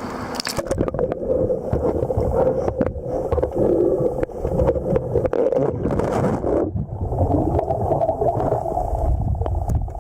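Muffled underwater sound of a river as the camera goes below the surface less than a second in: a low rush of current with scattered clicks and knocks.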